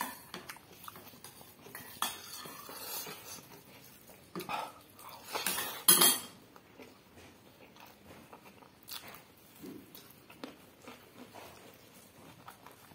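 Cutlery clinking and scraping against plates and bowls during a meal, in scattered irregular knocks, with the loudest clatter about six seconds in.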